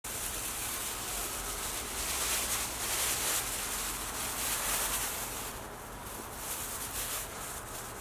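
Thin plastic bag rustling softly as it is handled and tipped, a steady crinkling hiss that swells a little a couple of times.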